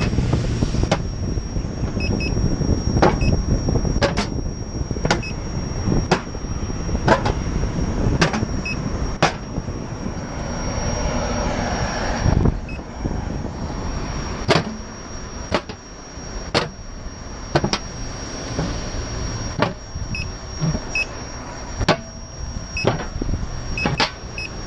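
Riding noise from a camera mounted low on a moving Gotway MCM4 electric unicycle: wind on the microphone and tyre rumble on asphalt, with a faint steady high whine and sharp clicks about once a second.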